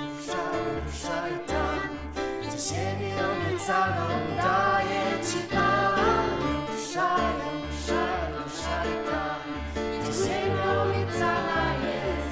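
A Christian song: singing over instrumental backing with a steady beat and bass.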